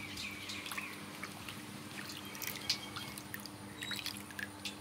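Water dripping and trickling off a hand and a wet baby monkey into a steel basin of bathwater, a scatter of small drips and splashes over a faint steady hum.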